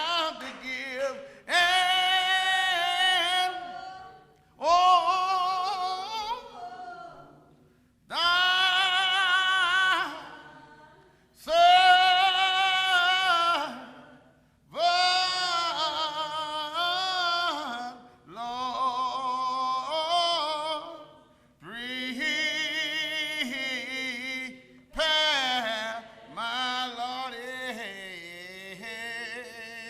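Unaccompanied voices slowly singing a hymn, in long, drawn-out phrases of a few seconds each with short breaks between them.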